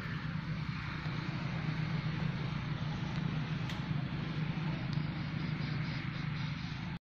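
Steady outdoor forest ambience: an even drone of insects with a constant low hum beneath it, unchanging throughout, and no monkey calls.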